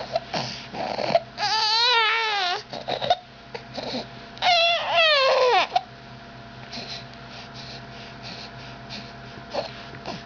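Baby crying: two long wails with a wavering pitch, one about a second in and one about four and a half seconds in, with short whimpering sounds between and after.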